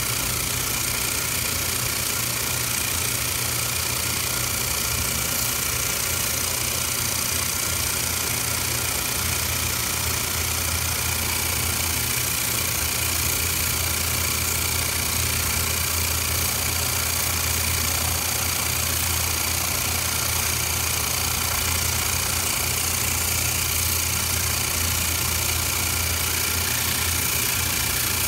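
A running machine: a steady, unchanging low hum with an even, airy hiss above it.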